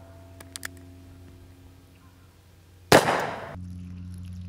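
A single shot from a Merwin Hulbert fourth model pocket revolver in .38 S&W, about three seconds in: a sharp crack that rings off over about half a second.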